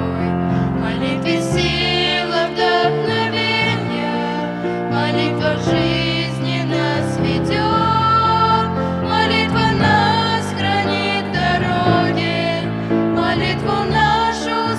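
A church hymn sung with instrumental accompaniment: voices hold long notes over steady sustained chords.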